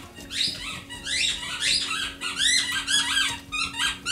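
A small animal's high, squeaky calls, repeated several times a second and coming thicker toward the end: a real racket.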